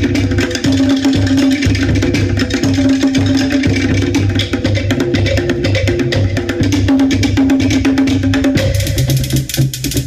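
Tahitian drum music: rapid, dense strokes on wooden slit drums (to'ere) over a deep repeating bass drum beat. The rhythm pattern changes about eight and a half seconds in.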